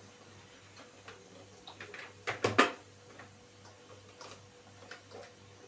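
Light clicks and knocks of parts of a new kitchen appliance being handled and fitted together by hand, with two sharper clicks about halfway through.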